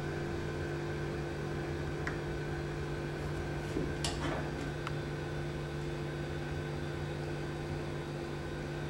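Steady low electrical hum of a kitchen background, with a few faint light clinks of kitchenware, one near the start and a couple about halfway through.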